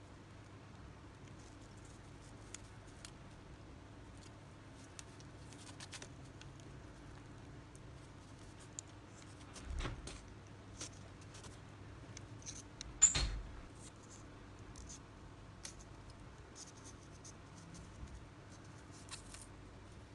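Metal fishing hooks, wire and pliers handled close up: faint scratches and small ticks, a soft knock about ten seconds in and one sharp click about thirteen seconds in.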